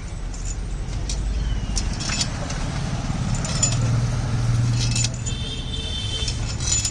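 Metal tools and engine parts clinking and clicking now and then, over a steady low hum that grows stronger midway, with a brief high ringing of metal a little past the middle.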